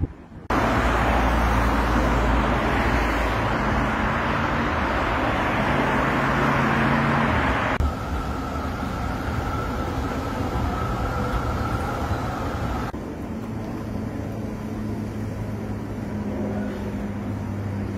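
City road traffic: a steady wash of passing vehicles with a low engine hum. The noise changes abruptly three times, louder and brighter at first, then duller with a faint high whine.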